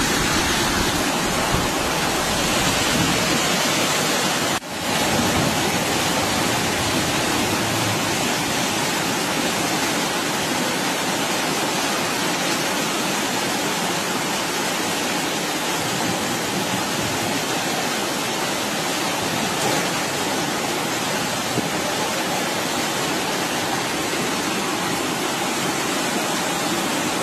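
Floodwater rushing down a street in a steady torrent, with a brief break about five seconds in.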